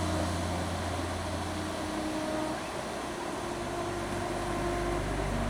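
Steady wash of ocean waves with a low, sustained ambient drone under it; the drone's held notes shift about two seconds in and again a little after four seconds.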